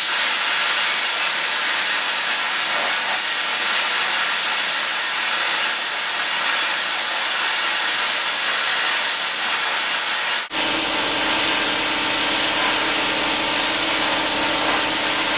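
Harbor Freight plasma cutter cutting freehand through half-inch steel plate: a loud, steady hiss of the arc and its air jet blowing out the slag. It breaks off briefly about ten seconds in, then resumes with a low steady hum underneath.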